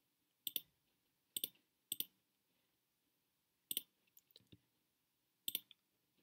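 Computer mouse button clicks: about five sharp, quick press-and-release clicks spaced a second or so apart, with a few faint ticks about four seconds in.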